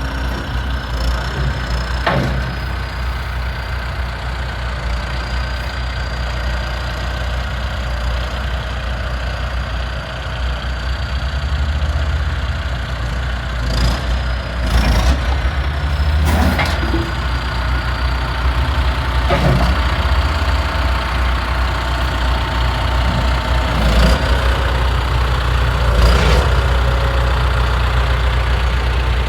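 2009 John Deere 410J backhoe loader's diesel engine running steadily, its note rising a little about ten seconds in. Several sharp clanks sound over it, about half a dozen times.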